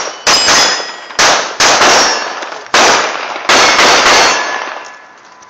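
A .22 Ruger pistol firing five quick, unevenly spaced shots at steel plates, each followed by the ring of a plate being hit. The ringing fades out about a second after the last shot.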